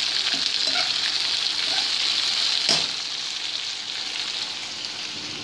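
Sliced onions sizzling in hot oil in a nonstick wok, stirred with a slotted spoon that clicks and scrapes against the pan. A sharp knock comes a little under three seconds in, after which the sizzle is somewhat quieter.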